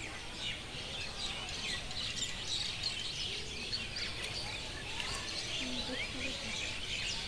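Many small birds chirping at once, a dense, continuous chorus of short high chirps and trills: an evening chorus at dusk.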